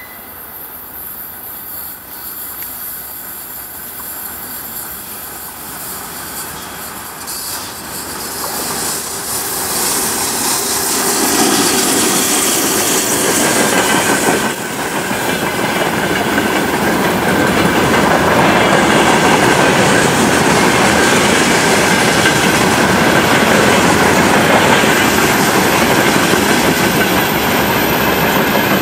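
Freight train hauled by a 2ES5K Ermak two-section electric locomotive approaching and passing close by, its noise building and then becoming a loud, steady rumble of wagons rolling over the rails. A steady high squeal comes in about halfway through.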